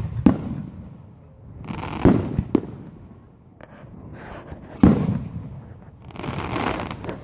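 Aerial firework shells bursting overhead: four sharp booms a second or two apart, each trailing off. Near the end comes a spell of dense crackling from crackle-star shells.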